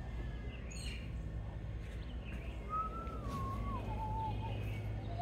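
Low steady background hum, with a single clear whistled note a little past halfway that slides down in pitch over a second or two.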